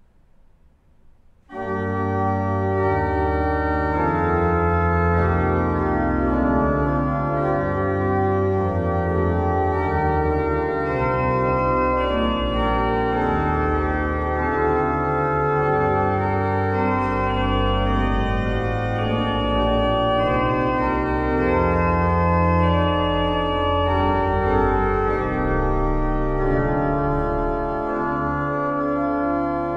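1809 Meere pipe organ, a two-manual mechanical-action slider-chest organ, begins playing about a second and a half in after a near-silent pause, then sounds several held notes at once over deep bass notes.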